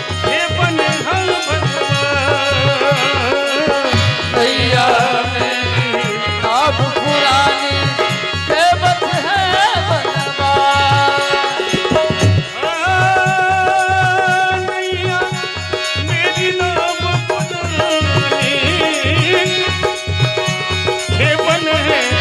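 Devotional bhajan kirtan music: a singing voice over a held reed-organ drone and a steady hand-drum beat, with a shaker or rattle.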